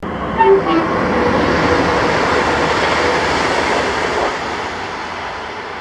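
A train passing on the line, a loud steady rush of wheel and rail noise that fades away over the last second or two, with a few brief squeaks about half a second in.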